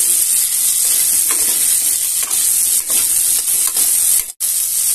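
Cauliflower florets sizzling as they fry in hot oil in a kadai, with several strokes of a spatula turning them. The sizzle cuts out for an instant near the end.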